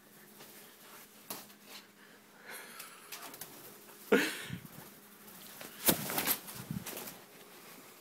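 Breathy, wheezing exhalations, the loudest a falling rush about four seconds in, mixed with a few short knocks and rustles near six seconds, over a faint steady hum.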